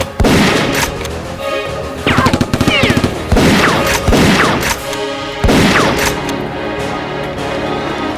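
Rapid bursts of automatic gunfire sound effects with several falling whizzing sweeps, over background music. The firing stops about five seconds in, leaving the music.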